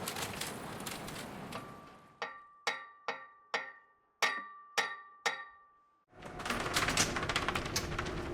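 Sawing and tool sound effects in sequence. A rough rasping noise fades away, then come seven sharp knocks about half a second apart, each leaving a short ringing tone. About six seconds in, a new rasping, crackling tool noise starts.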